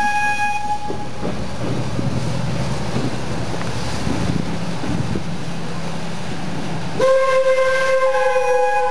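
A train's horn sounds a sustained multi-tone chord that stops about a second in, the train runs with a low rumble and clatter, and the horn starts again abruptly near the end and holds.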